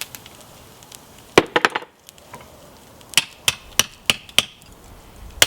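Hammer blows on a chisel cutting hot lawn-mower blade steel on an anvil, each strike ringing sharply. A quick cluster of about four blows comes first, then an even run of blows about three a second.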